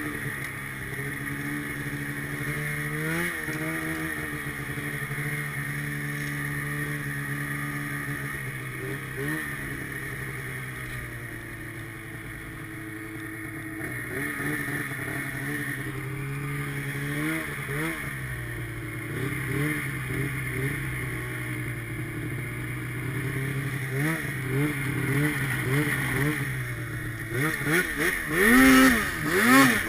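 Arctic Cat snowmobile engine running under way, holding a steady pitch for long stretches and rising and falling as the throttle is worked. The revs come in quick repeated surges in the second half and are loudest near the end.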